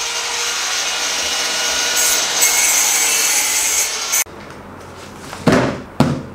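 A power tool works at the masonry with a loud, steady grinding hiss that cuts off abruptly after about four seconds. In the quieter room that follows, there are two sharp knocks as a cardboard stove box is handled.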